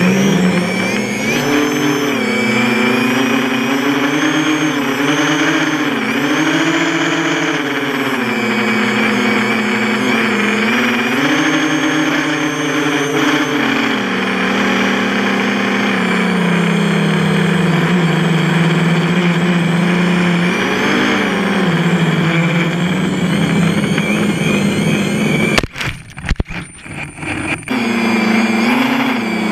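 Quadcopter's 2300kv brushless motors and propellers whining, heard from on board the drone, the pitch rising and falling as the throttle changes. Near the end the motor sound drops away for about two seconds, then spins back up.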